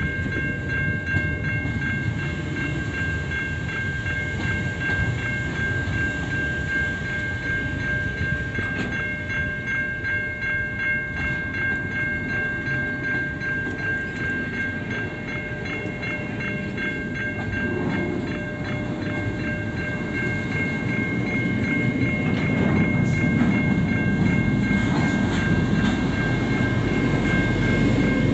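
Intermodal freight wagons rolling past close by, their wheels clattering and rumbling over the rails. A steady high-pitched ringing tone sits over the rumble. The rumble grows louder in the last few seconds.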